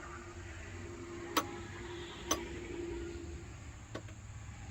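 A few sharp metallic clicks, the two loudest about a second apart, as the parts of a Stihl FS 111 R trimmer's blade and cutting-head hardware are handled and turned on their left-hand thread. A faint steady hum underneath stops a little past halfway.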